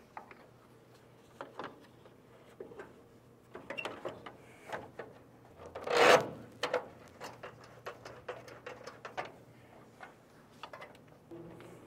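Scattered clicks, taps and light scrapes of metal parts as a front bumper and grille are fitted to a classic car by hand, with one louder rubbing scrape about six seconds in.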